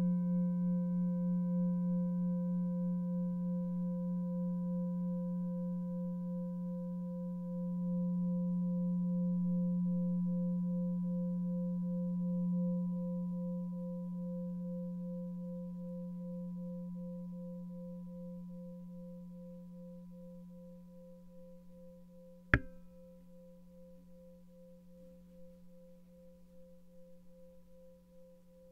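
An 18.5 cm seven-metal singing bowl ringing with a low hum and several higher overtones, pulsing slowly as it gradually dies away. A single sharp click sounds about three-quarters of the way through.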